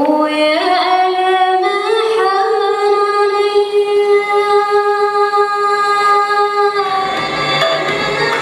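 Soundtrack music: a solo female voice slides up and then holds one long high note. About seven seconds in, a fuller accompaniment with low notes comes in beneath it.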